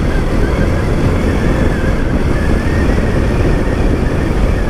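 Motorcycle under way: steady wind rush on the microphone over the running engine and the tyres on the road.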